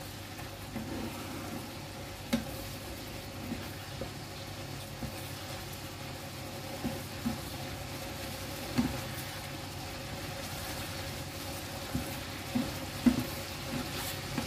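Wooden spatula stirring bean sprouts and glass noodles in a sizzling, simmering sauce in a frying pan, with a steady sizzle and irregular scraping knocks of the spatula against the pan, about a dozen in all, the loudest near the end.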